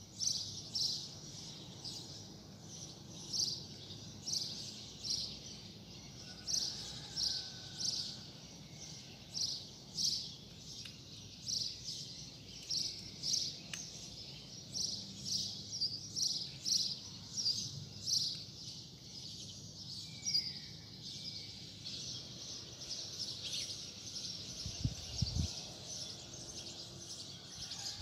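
A small bird chirping over and over, about two short high chirps a second, over faint steady street background noise. A brief low thump comes near the end.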